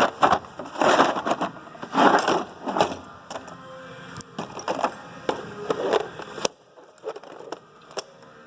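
Tools being handled and shuffled in a tool box drawer: a run of clattering rustles and sharp clicks, going much quieter for the last two seconds.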